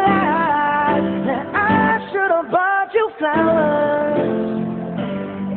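A pop ballad with a singer holding and sliding through a wordless or drawn-out vocal line over guitar accompaniment.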